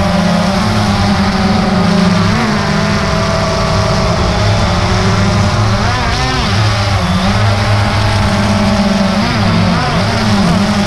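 DJI Phantom 2 quadcopter's brushless motors and propellers buzzing steadily, the pitch dipping and rising a few times as the drone manoeuvres.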